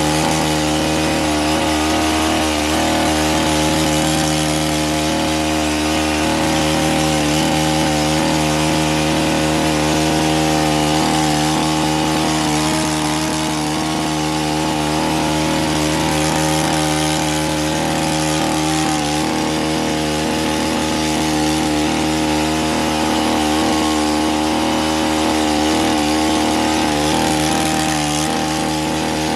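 Small petrol engine of a gardening power tool, such as a hedge trimmer or chainsaw, running steadily at a near-constant speed.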